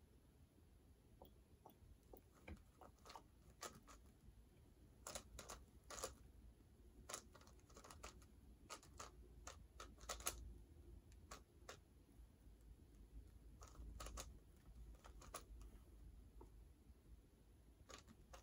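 A speedcube-style twisty puzzle being turned by hand: faint, irregular plastic clicks and clacks, coming in quick clusters with short pauses between them.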